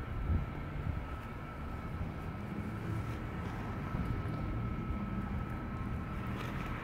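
Steady low rumble of outdoor urban background noise, with a faint constant high whine above it.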